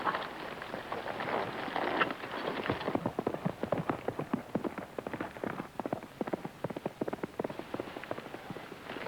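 Hoofbeats of horses galloping: a dense, rapid clatter over a hissing noise, turning into distinct quick hoof strikes from about three seconds in.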